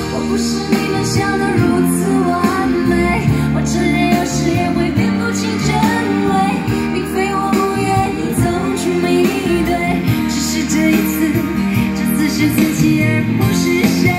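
Mandarin pop song with a woman singing over guitar and bass, played through JVC SK-41 three-way bookshelf speakers driven by a Pioneer SA-510 amplifier.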